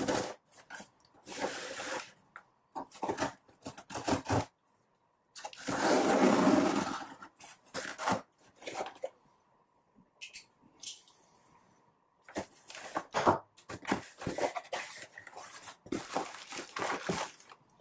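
A cardboard shipping box being opened by hand: packing tape slit with a knife and pulled away, cardboard flaps handled, with one longer stretch of tearing noise about six seconds in. Later, plastic air-pillow packing rustles as a hand digs inside the box.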